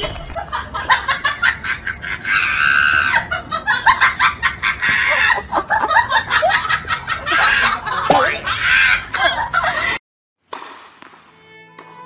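High-pitched, cackling laughter in quick bursts. It breaks off abruptly about ten seconds in.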